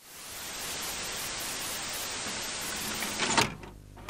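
VHS-style static sound effect: a steady hiss fades in, then breaks off a little after three seconds in with a short, loud crackle and clunk. A faint low hum is left behind.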